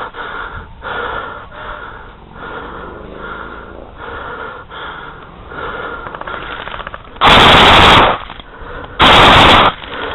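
Two very loud, close bursts of rapid airsoft gunfire, each under a second long, about seven and nine seconds in, with quieter intermittent noises before them.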